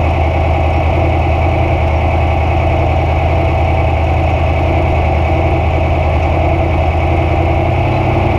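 A 900-horsepower Trophy Truck's race engine idling steadily, heard from inside the cockpit.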